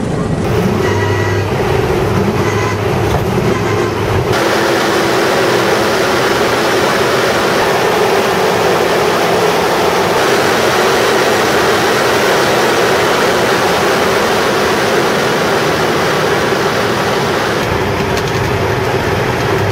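Race car running at speed, heard from inside the car: a loud, steady rush of engine and wind noise that changes abruptly about four seconds in.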